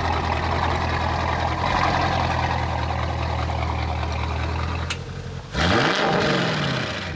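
Audi RS6 Avant's twin-turbo V8 idling steadily soon after a cold start, then revving hard about five and a half seconds in as the car pulls away, the sound fading after.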